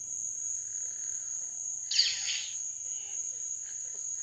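A steady high-pitched cricket trill runs throughout. About two seconds in, a sudden short hissing burst sounds, the Hasbro Darth Revan toy lightsaber's electronic swing sound effect as it is moved.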